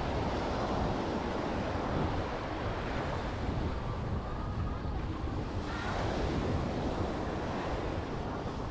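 Caribbean surf washing onto the beach, a steady hiss of waves with wind buffeting the microphone; a wave surges in about six seconds in.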